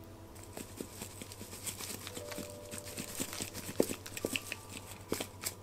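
Grated cheese being shaken from a shaker container over a salad: a run of quick, irregular light taps and clicks with a faint hiss of the powder falling.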